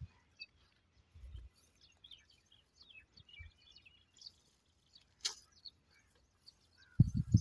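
Small birds chirping in the background, with a sharp click about five seconds in and a loud burst of low rumbling near the end.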